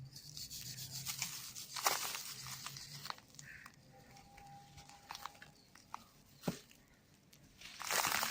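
Dry cement balls and cubes crumbling and crunching: gritty crackles and small snaps, with a louder crunch about two seconds in, a sharp snap later on and a big crumbling crunch near the end.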